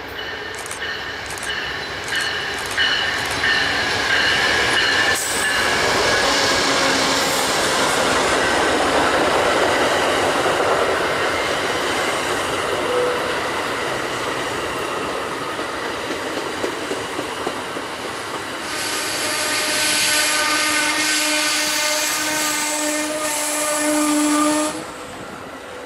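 A train rolling past: a steady rush of steel wheels on rail with high, steady squealing tones over it. Near the end a stack of high squealing tones rises over the noise and then cuts off suddenly.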